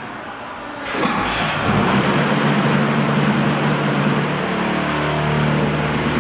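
Concrete hollow-block production machinery running. A loud mechanical noise comes in about a second in and settles into a steady hum with a low tone.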